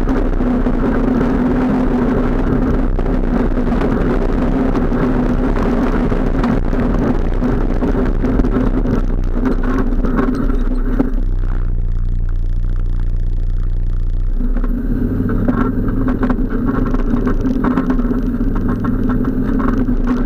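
ATV engine running loud and steady while riding a dirt trail. A little past the middle its note drops lower for about three seconds, then comes back up.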